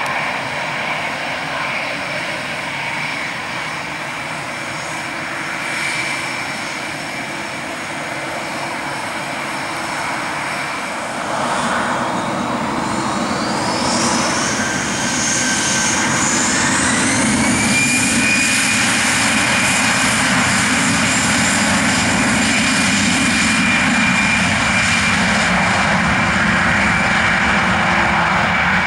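Airbus A320's CFM56 turbofan engines running with a steady whine, then spooling up a little before halfway with a rising whine that levels off into a louder, steady high whine as the airliner goes to takeoff thrust and rolls away down the runway.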